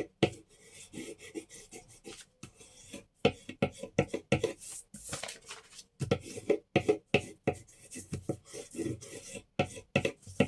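Paper being rubbed down and handled on a table: irregular scraping strokes and rustles, as when a tape hinge is pressed flat onto a page.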